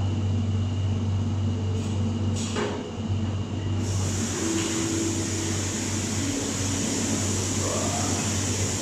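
Cold plunge bath's water jet pump running with a steady low electric hum. A steady hiss joins about four seconds in.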